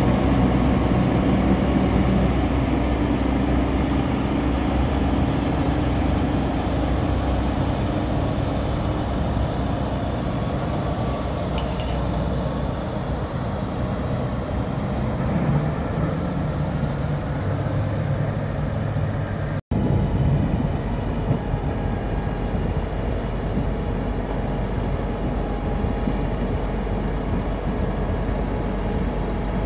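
Heavy diesel engine of a Holmer Terra Variant 600 beet transporter running steadily as it drives across the field. The sound drops out abruptly about two thirds of the way through. It then resumes as the steady running of the Holmer Terra Dos T3 beet harvester and the transporter working side by side while beets are overloaded.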